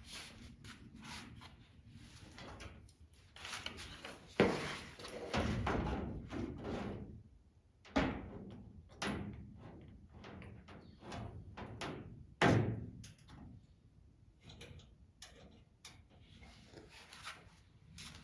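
A plastic body panel being handled and fitted against a race car's door, with sporadic knocks, thuds and scraping. Three sharper knocks come about four seconds apart.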